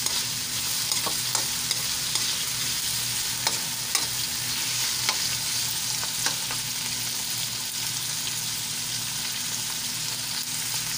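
Tomato, onion and garlic sizzling in hot oil in a metal wok, with a metal spatula scraping and tapping the pan now and then during the first six seconds or so.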